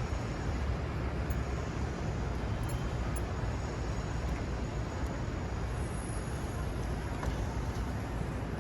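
Steady city street traffic noise, an even low rumble with no distinct events.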